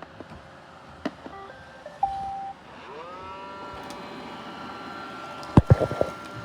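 Roomba robot vacuum beeps once, then its motor spins up into a rising whine that settles to a steady hum as it sets off for its dock. Several sharp knocks come near the end.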